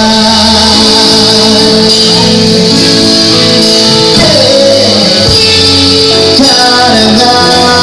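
Live band playing a pop song: keyboard, electric guitar, bass guitar and drum kit with cymbals, with a male singer singing into a microphone over them.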